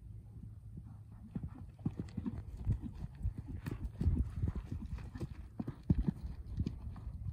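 Hoofbeats of a Percheron cross horse cantering on arena sand, a run of dull thumps, with a heavier landing thud from a jump near six seconds in.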